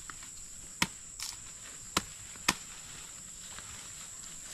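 Bolo knife chopping freshly dug cassava roots off the stem: four sharp chops at uneven intervals in the first two and a half seconds, over a steady high insect buzz.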